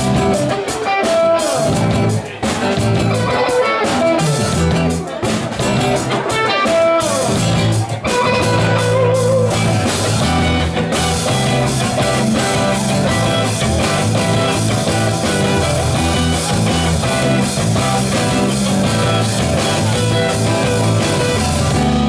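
Live rock band playing an instrumental opening: strummed acoustic guitar with two electric guitars and a drum kit. The music grows fuller and steadier about halfway through.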